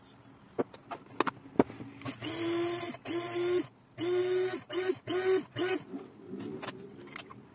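Small electric blade grinder pulsed about six times, grinding dried rosemary: short bursts of a steady motor whine, each under a second, the later ones shorter. A few sharp handling clicks come before the first burst.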